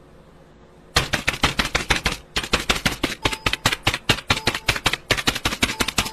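Fast typing on a computer keyboard: rapid irregular key clicks in bursts with short pauses, starting about a second in, over the low steady hum of the running PC.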